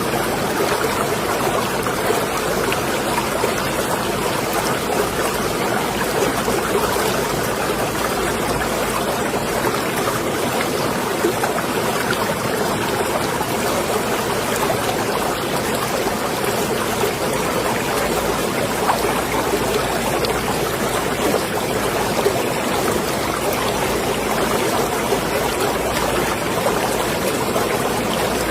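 Marina water sloshing and splashing, a steady, even wash of water sound with a fine crackle of small splashes throughout.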